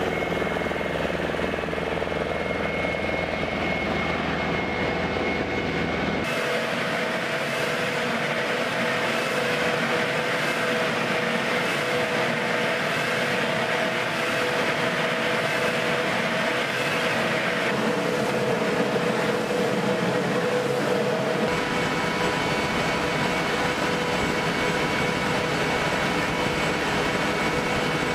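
Flight-line machinery running steadily, a weapons loader and aircraft ground equipment, with several steady whining tones over the engine noise. The sound changes abruptly about six seconds in and again about twenty-one seconds in.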